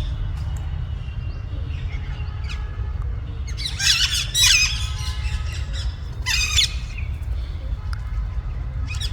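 Parrots squawking in loud, harsh bursts, the loudest about four seconds in and again around six and a half seconds, with fainter calls between, over a steady low rumble.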